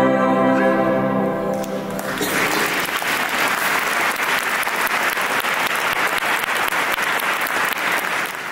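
A wind band's final chord held and dying away, then the audience applauding from about two seconds in.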